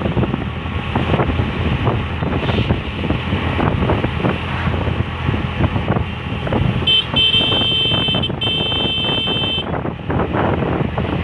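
Steady vehicle and traffic rumble with wind buffeting the microphone. About seven seconds in, a high-pitched vehicle horn sounds: one short toot, then two longer blasts.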